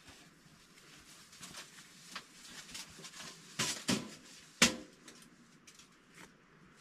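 Scattered clicks and knocks of a tent stove and its stovepipe being handled and fitted together, with a cluster of louder knocks about three and a half seconds in and the sharpest knock just after four and a half seconds.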